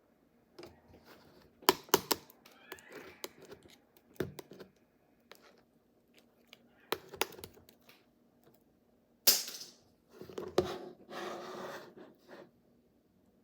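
Slime being handled and pressed: a run of sharp clicks and pops, then a louder squish about nine seconds in and a longer squishing stretch near the end.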